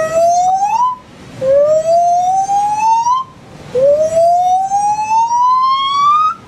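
Gibbon calling: three long whoops, each rising steadily in pitch, the later ones longer, typical of the rising notes of a gibbon's great call.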